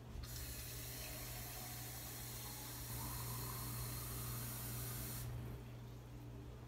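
Kitchen tap running into a pint canning jar, a steady rush of water that shuts off about five seconds in.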